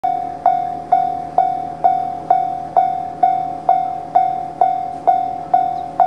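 Railway level-crossing alarm bell ringing in an even rhythm, a little over two strikes a second, each strike a single ringing tone that fades before the next. It is the warning that a train is approaching the crossing.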